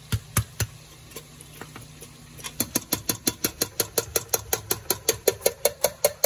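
Minced garlic being knocked out of a glass jar into a pot with a spoon: a couple of sharp clinks, then, about two and a half seconds in, a quick run of taps at about five a second.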